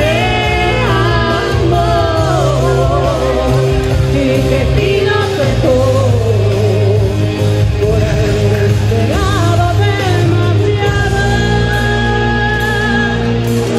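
Two women singing a duet into handheld microphones over a recorded backing track with a steady low bass line.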